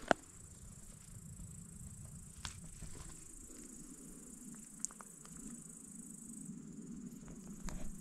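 Faint, steady high-pitched chirring of insects at dusk, with one sharp click near the start and a few soft ticks after it.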